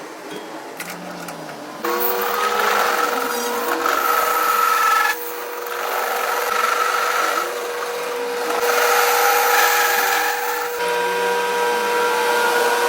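A power tool's motor starts about two seconds in and runs with a steady hum. Over it come three long stretches of rasping cutting or grinding noise, as the tool works metal on a broken engine camshaft being repaired.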